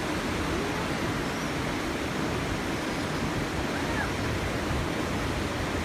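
Steady rushing noise with an uneven low rumble: wind buffeting the microphone.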